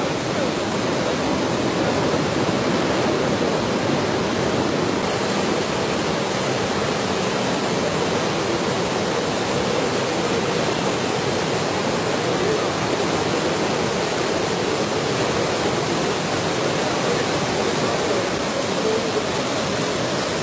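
Floodwater of a river in spate rushing past in a steady, unbroken rush of noise.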